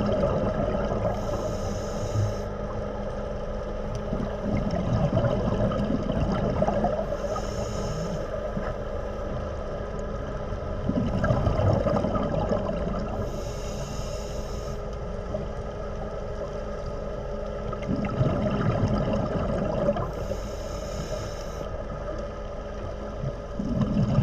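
A scuba diver's regulator breathing, heard underwater: a hissing inhalation about every six seconds alternating with a burst of bubbling exhalation, over a steady low hum.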